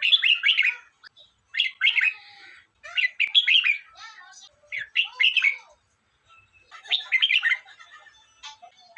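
Red-whiskered bulbul singing: five short, quick warbled phrases, spaced about one and a half to two seconds apart.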